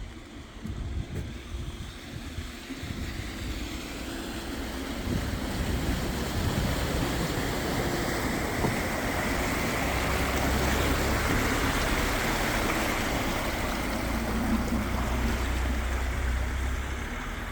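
A vehicle driving slowly through deep floodwater, its engine running while the water surges and splashes in a bow wave. It grows louder from a few seconds in, and the engine's low rumble is strongest in the second half.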